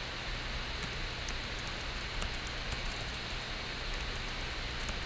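Steady hiss and low hum of a recording microphone's background noise, with faint scattered ticks.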